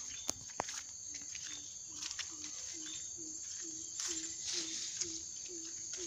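Tropical forest ambience: a steady high-pitched insect drone, and from about a second in a low short call repeated about twice a second by an unseen animal. Footsteps brush through ferns and dry grass.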